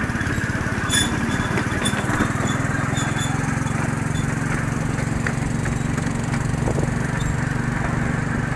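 A ride-on miniature train's small engine runs steadily under way, with a low drone and a fast pulse. A few light high clicks come in the first three seconds.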